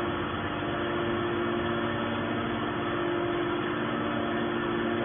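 Scrap baling machinery running steadily: a constant mechanical hum with a few unchanging tones over a dense noise.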